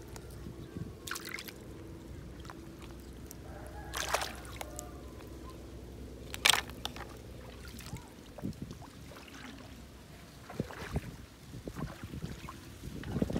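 Small water sounds of hands working in shallow water, sloshing and dripping, with a faint steady hum under the first half. A few sharp clicks cut through, the loudest about six and a half seconds in.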